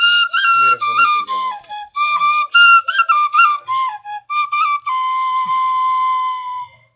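Short bamboo flute held upright and blown, playing a quick melody of short notes that step up and down. About five seconds in, it settles on one long held note that fades out at the end.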